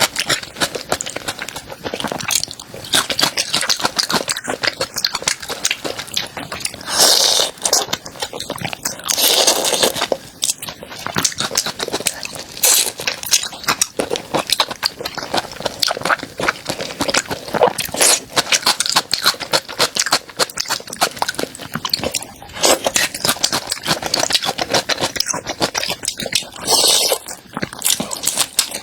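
Close-miked crunchy chewing of a crisp food: a dense crackle of crunches, with a few louder crunches or bites along the way.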